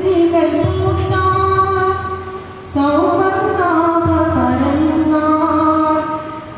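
A woman singing a prayer song into a microphone, in slow phrases of long-held notes with a short breath pause about two and a half seconds in.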